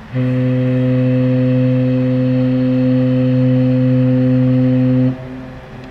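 Viking Line ferry Amorella's ship horn sounding one long, deep, steady blast of about five seconds as a warning signal, cutting off sharply and echoing briefly across the harbour.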